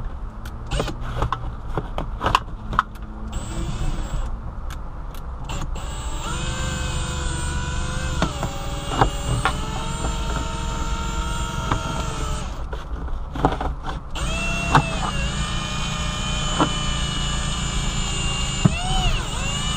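Cordless drill with a right-angle drive and long bit turning a wire-out winder, reeling the cutting wire through the windshield urethane. A few seconds of handling clicks and knocks come first, then the drill motor whines steadily in two runs of about six seconds each, its pitch wavering slightly.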